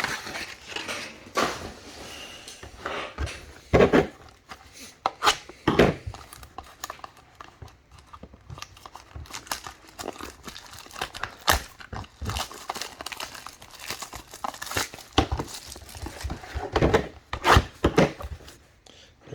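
Hands handling card boxes and packaging: plastic wrap crinkling and tearing, with a string of irregular knocks and clicks as boxes are set down and moved.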